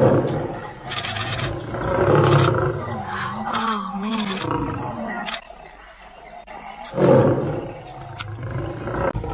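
A large wild animal roaring and growling in several loud bursts: one at the start, another about two seconds in, and a third about seven seconds in, with a wavering growl between them.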